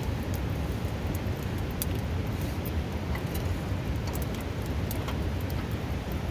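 Steady rush of a river running close by, with scattered sharp crackles and pops from a wood campfire.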